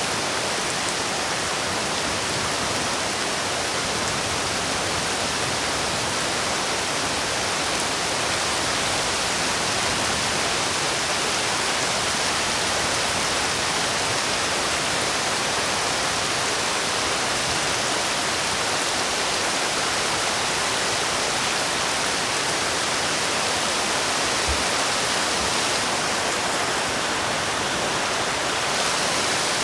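Steady rain falling, a dense even hiss with no breaks or changes.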